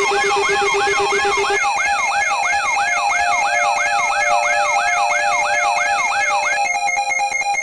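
Layered electronic alarm tones: a quick rising-and-falling whoop repeating about three times a second over steady pulsed beeps. A low beep drops out about a second and a half in, and near the end the whoop stops and a rapid stutter of beeps takes over.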